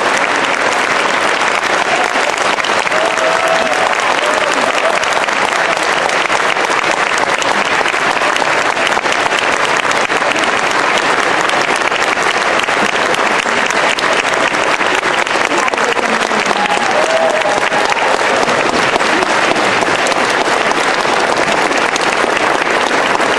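Concert-hall audience applauding, a dense and steady clapping that keeps going without letting up, with a couple of faint calls from the crowd over it.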